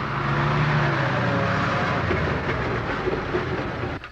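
Heavy diesel vehicle engine running steadily, with a low engine hum under a broad rumble and clatter.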